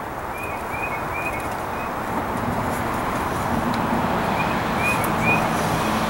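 A small bird chirping in two short runs of about three high notes each, over steady background noise.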